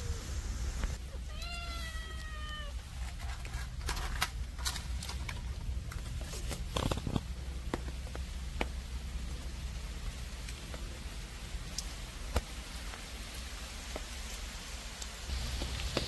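A cat meows once, a drawn-out call falling slightly in pitch about a second in. Scattered sharp clicks and taps follow over a steady low rumble.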